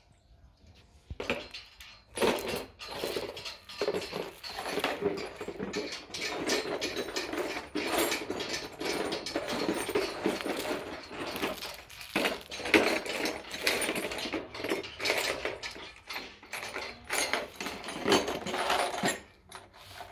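Irregular clattering and rustling of materials being handled, with many small knocks and clicks. It starts about a second in and stops shortly before the end.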